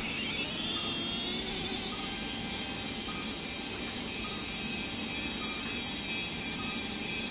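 High-speed otologic surgical drill whining as it drills a hole through thick bone. It starts sharply, its pitch rises over about the first two seconds, then it holds a steady high whine.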